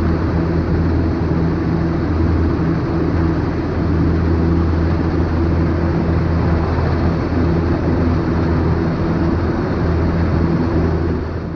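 Cessna 152's four-cylinder Lycoming O-235 engine and propeller running steadily, with heavy wind rush over a wing-mounted camera; the sound starts to fade right at the end.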